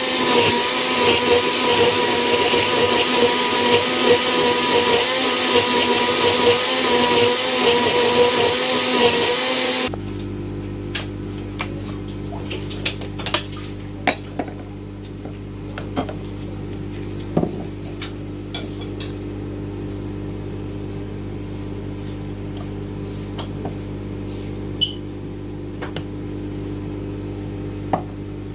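Electric blender running at speed, blending a smoothie, with a steady motor hum under the whirring; it is switched off suddenly about ten seconds in. Afterwards scattered light clicks and knocks sound over a quieter steady low hum.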